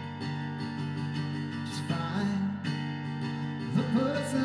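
Acoustic guitar strummed in steady chords. A man's singing voice comes in briefly about two seconds in and again near the end.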